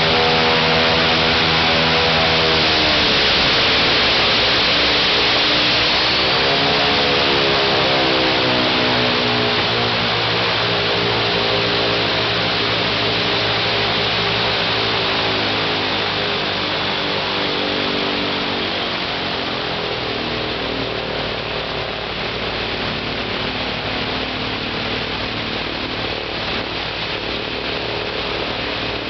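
Ilyushin Il-14T's ASh-82T fourteen-cylinder radial engine running on its first ground run, over a heavy rush of propeller wind. Its pitch drops about two seconds in, climbs again around seven seconds, then settles lower and a little quieter in the second half as the throttle is eased back.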